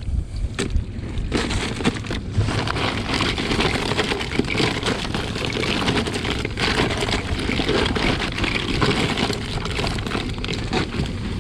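Rushing, splashing water close on the camera, with scattered clicks and knocks through it.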